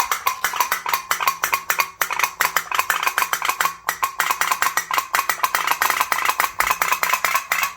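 A candle-heated 'phat phat' pop-pop toy boat running, its small boiler tapping in a rapid, even rhythm as it pulses water out of its tubes. The tapping is still going, so the candle has not yet burned out.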